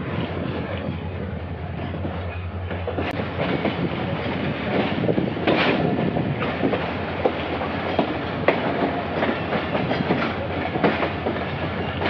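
Karachi Circular Railway diesel-hauled passenger train running at low speed, heard from on board. A steady low hum sits under the rumble of the carriage, with irregular clicks and knocks from the wheels on the track.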